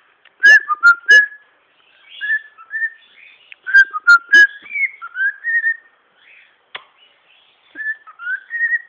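Pied cockatiel whistling: two loud bursts of short chirped whistle notes, about half a second in and again about four seconds in, then softer warbling whistled phrases.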